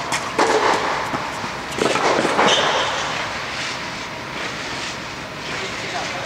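Tennis ball struck with rackets and bouncing on a clay court, sharp hits with a short echo from the inflated dome hall, bunched in the first two and a half seconds; after that only a steady, quieter hiss of the hall.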